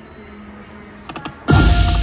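Slot machine electronic sounds: a faint held tone and a few quick clicks, then a sudden loud burst of the machine's sound effects about one and a half seconds in.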